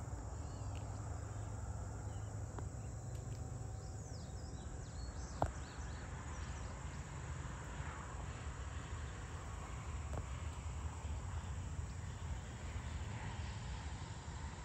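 Evening chorus of crickets and other insects, a steady high chirring over a low rumble, with a few short high chirps near the middle and a single sharp click about five seconds in.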